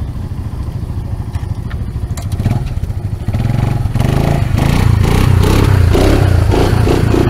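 ATV engine running, growing louder about three to four seconds in.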